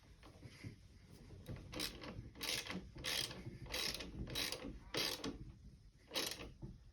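Hand ratchet wrench clicking through a run of short strokes, about one every half second, while turning a bolt on the motorcycle's exhaust mounting.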